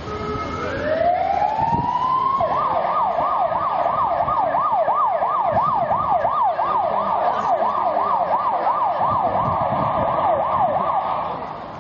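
Emergency vehicle siren: a rising wail that winds up over about two seconds, then switches to a fast yelp rising and falling two or three times a second, stopping near the end.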